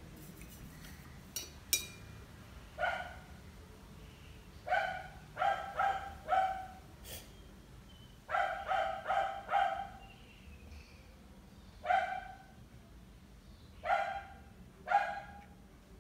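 A dog barking repeatedly, in short barks: some single, some in quick runs of three or four. A couple of sharp clicks come near the start.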